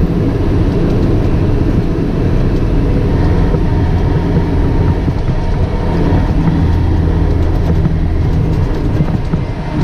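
Tow truck driving on a rough unpaved track, its engine running steadily under a low rumble, with scattered knocks and rattles from the truck.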